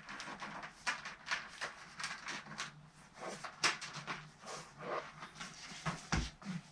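Handling noise of carbon fishing-pole sections being slid back into place: irregular rustles and light clicks, with a low thump about six seconds in.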